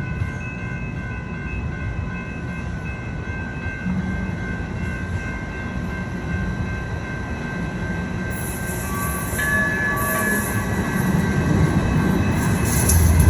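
Tram running on rails: a steady electric whine over a rumble that grows louder toward the end, with bursts of high hissing in the second half.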